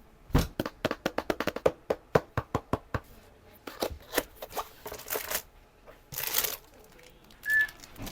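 Keys being typed on a Rapoo mechanical keyboard: a quick run of sharp clicks, several a second, for about three seconds, then looser, irregular clacks. About six seconds in comes a short rustle, and near the end a brief burst with a short high tone.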